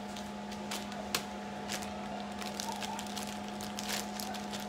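Plastic zipper freezer bags rustling and crinkling in the hands, with scattered light clicks, the sharpest about a second in, over a steady low hum.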